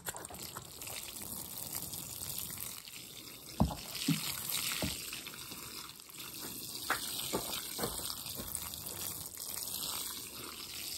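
Water sprinkling from a plastic watering can's rose onto potting soil and plant stems: a steady splashing patter with a few sharper drips and splashes.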